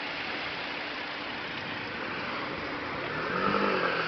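Steady rushing hiss of a heavy cloudburst: rain and running floodwater. A pitched sound rises over it about three seconds in.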